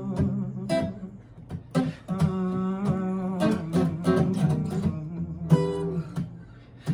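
Acoustic guitar strummed, with wordless sung vocals and humming over it.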